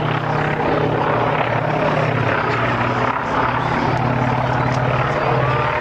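Engines of two propeller aircraft flying overhead in formation, a steady drone that holds an even pitch.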